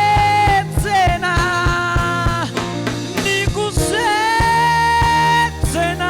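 Gospel band music with a steady drum beat, bass and long held melody notes that bend in pitch.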